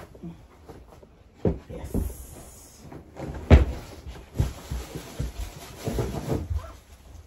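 Knocks, thumps and rustles of things being handled and set down on a table, with the loudest thump about three and a half seconds in and a brief hiss around two seconds in.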